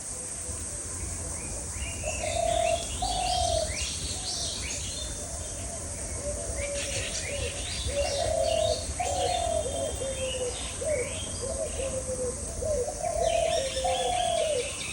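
Doves cooing in repeated low phrases, with other small birds chirping in quick bursts over them.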